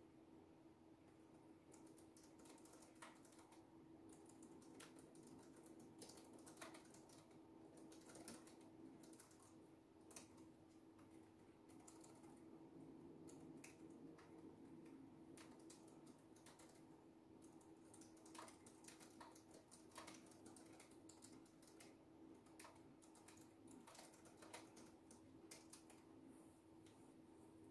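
Quiet typing on a computer keyboard: irregular runs of soft key clicks with short pauses, over a faint steady hum.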